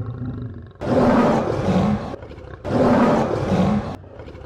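Lion roaring twice, each roar about a second long with a short gap between, after a quieter low rumble.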